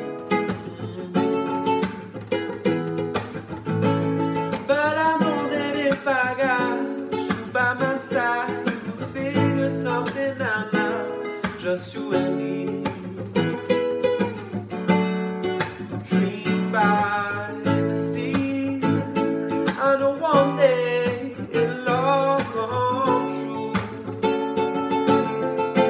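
A man singing to a strummed nylon-string classical guitar. The guitar plays alone for the first few seconds, then the voice comes in, in phrases with short guitar stretches between them.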